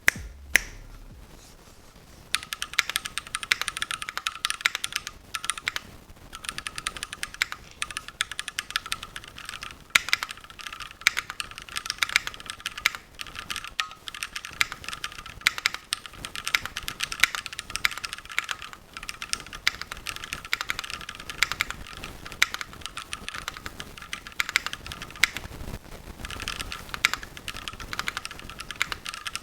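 Typing on a Keychron Q1 mechanical keyboard with Gateron Phantom Brown tactile switches: a fast, steady run of keystrokes starting about two seconds in, with brief pauses twice.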